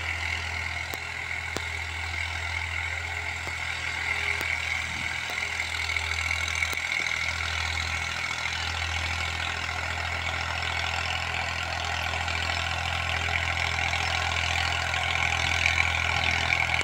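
Farm tractor's diesel engine running steadily while it drags a suhaga (wooden plank leveller) over the field; it grows somewhat louder near the end.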